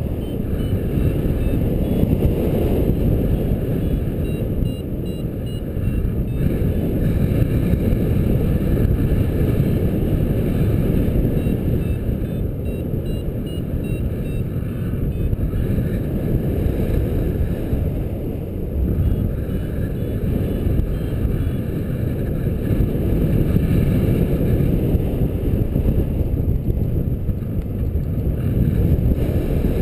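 Steady rush of airflow over the microphone in paraglider flight, a dense low rumble that swells and eases. Faint rows of short high beeps come and go, the sound of a flight variometer.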